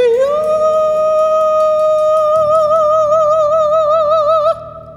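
Soprano voice sliding up into a long held final note with widening vibrato, over piano and drums. Everything cuts off together about four and a half seconds in, and the note rings away in the hall's reverberation.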